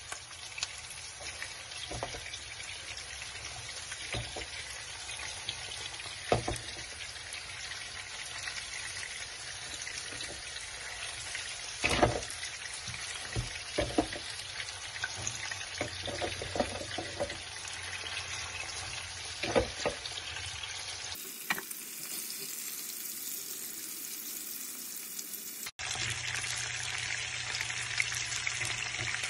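Pieces of beef rib sizzling in hot oil in a frying pan, a steady frying hiss with a dozen or so short knocks and clatters as pieces go into the pan. The sizzle changes abruptly twice near the end.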